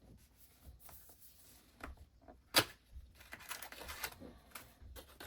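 Product packaging being handled and opened: soft rustling and scattered light clicks, with one sharp click or snap about two and a half seconds in.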